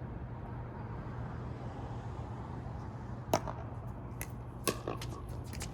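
Pickleball paddles striking the hollow plastic ball in a rally: one loud sharp pop about three seconds in, then a few lighter pops and ball bounces in quick succession.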